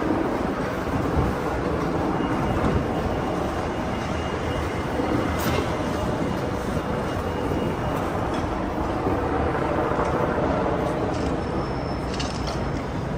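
Steady ambient noise of a busy city street, an even, unbroken din, with a faint high tone in the middle and a few light clicks.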